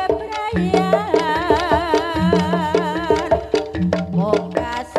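Live jaranan ensemble music: drums and struck gong-like percussion playing a fast, busy rhythm, with a wavering melody line carried over it from about a second in until past the middle.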